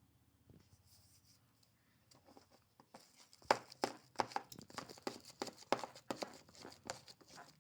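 Fluffy shaving-cream slime being worked and stirred, giving a run of irregular sticky squelches and small crackling pops that starts about three seconds in.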